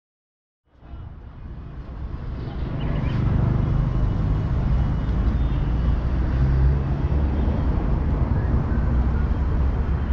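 Outdoor city ambience with a steady low rumble of traffic, fading in from silence just under a second in.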